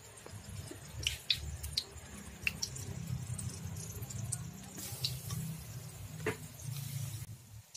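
Hot oil in a wok crackling and spitting with scattered sharp pops over a low steady rumble, with short spells of sizzling as flour-battered mushrooms fry.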